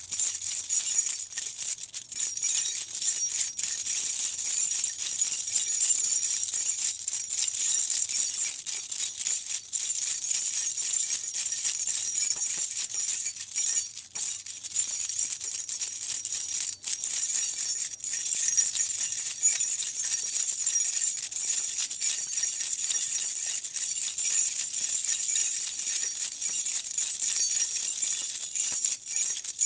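A bunch of metal keys shaken and jangled without pause, a dense bright metallic jingling.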